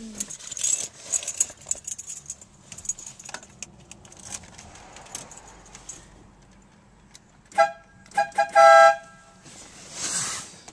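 FIAMM air horn sounding in quick blasts, two notes together: a short toot, two quick toots and a longer blast near the end. Before it, light jingling and clicking.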